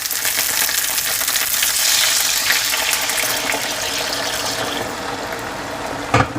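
Water poured into a hot pot of seared chicken legs, sizzling and hissing loudly as it hits the hot pot. The sizzle eases off over the last couple of seconds, and one sharp knock comes just before the end.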